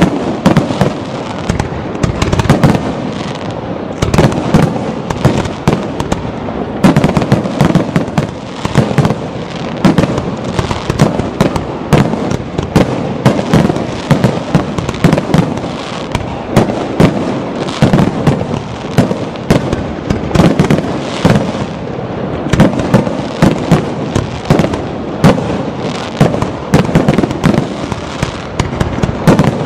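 Aerial firework shells bursting in a fireworks finale barrage: many loud sharp bangs in quick succession, overlapping with no pause.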